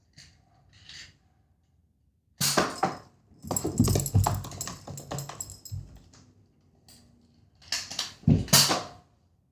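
A toy Nerf foam-dart blaster being handled and fired. Several sharp clattering noises come in bursts: one about two and a half seconds in, a longer two-second stretch of clatter after it, and two more sharp hits near the end.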